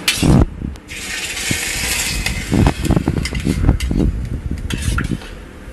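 Hot oil with mustard seeds and cumin sizzling as it hits curd in a steel pan, then a steel spoon stirring and knocking against the pan.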